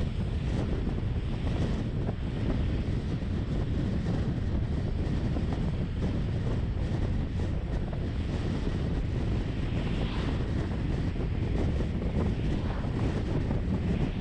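Steady road and wind noise from a vehicle driving, mostly low in pitch, with wind buffeting the microphone.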